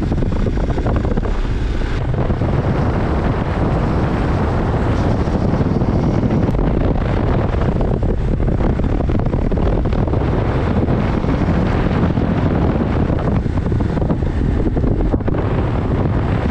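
Motorcycle riding along, its engine running steadily under heavy wind noise on the microphone.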